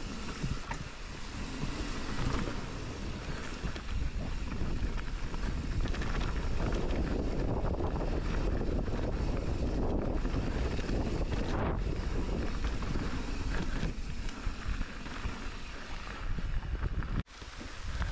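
Wind buffeting a ride-along camera's microphone while a mountain bike runs down a trail, with the low rumble of the tyres on the ground. It swells through the middle and cuts off abruptly near the end.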